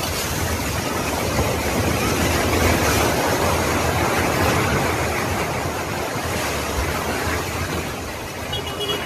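Collapsing apartment building: a loud, steady rushing rumble of falling debris that starts suddenly and eases off slightly near the end.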